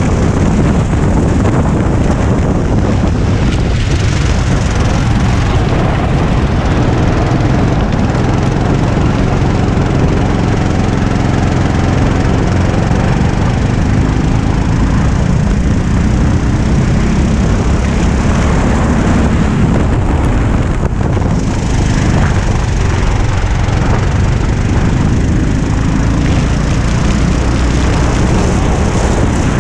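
Racing go-kart's small engine running hard at speed, heard from on board the kart, with wind rushing over the microphone. The engine note stays steady, with one short let-up a little after the twenty-second mark.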